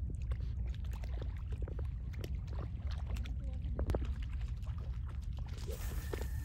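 Steady low rumble of wind and shallow seawater at the shoreline, with scattered small splashes and clicks.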